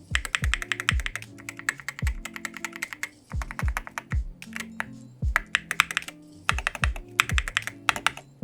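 Fast typing on a custom Wooting 60HE+ keyboard with ceramic keycaps and lubed magnetic switches: quick runs of sharp clacks in bursts, with short pauses twice. Background music with a deep bass beat plays underneath.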